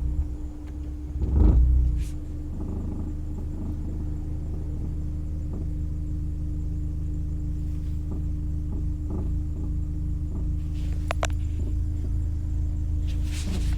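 Honda S2000's four-cylinder engine idling cold with a low rumble, with a brief surge about a second and a half in from a light tap of the throttle. The owner suspects a worn motor or transmission mount behind the rumble and shake at low revs, which fades once the engine warms up.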